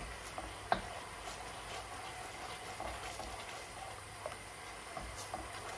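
Barbecue sauce simmering in a wok, a steady bubbling with scattered small pops and clicks, the sharpest about a second in.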